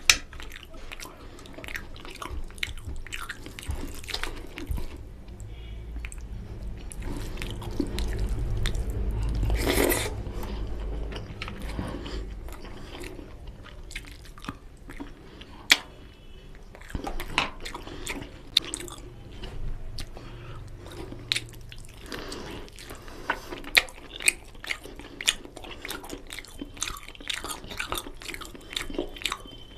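Close-up chewing and wet mouth clicks of a person eating mutton curry and rice by hand, with many short sharp clicks throughout and one longer, louder swell of noise around ten seconds in.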